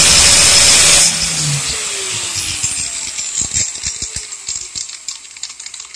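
Black & Decker angle grinder with a steel polishing wheel running at full speed, then switched off about a second in. Its whine falls in pitch as it spins down, with scattered ticks and rattles, fading away.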